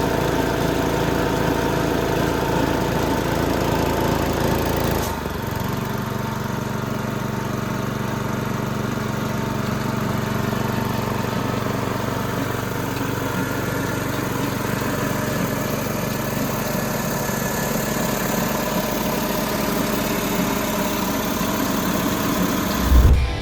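Small 5.5 hp gas engine of an Ingersoll Rand SS3 wheelbarrow air compressor running steadily. Its sound changes about five seconds in, then holds steady.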